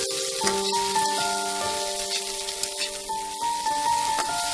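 Vegetables sizzling in hot oil in a frying pan as they are stirred, a steady crackling hiss with small clicks, under background music of held notes.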